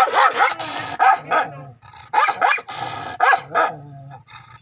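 A dog barking repeatedly, the barks coming in quick pairs about once a second.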